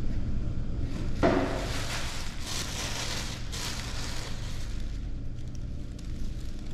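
Tissue paper crinkling and rustling in uneven bursts as gifts are pulled out of a paper gift bag, over a steady low hum.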